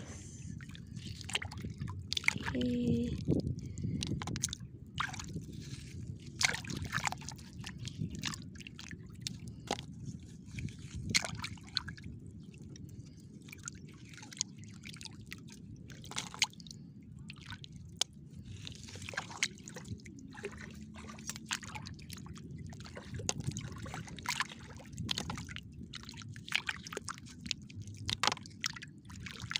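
A hand sloshing and raking through shallow water and sandy mud while digging for clams, with many small sharp splashes and drips over a steady low rumble.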